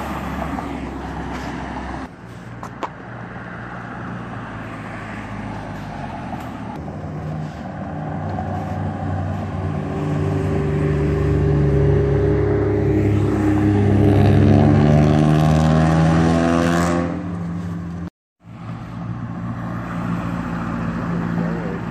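Cars and a pickup truck driving past one after another, their engines running steadily and revving. Partway through, one engine accelerates hard, rising in pitch and getting louder before it drops away.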